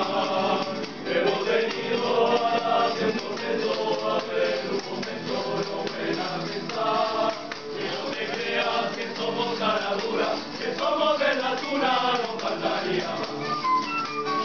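A student tuna performing: a chorus of male voices singing over several strummed Spanish guitars and bandurrias.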